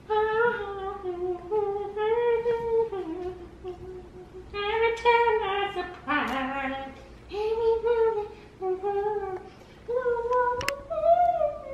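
A string of short, high, wavering howls, each under a second and sliding up and down in pitch, with a louder, rougher cry about six seconds in. There is a single sharp click near the end.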